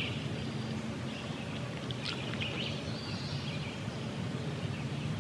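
Quiet woodland background with faint, scattered songbird chirps.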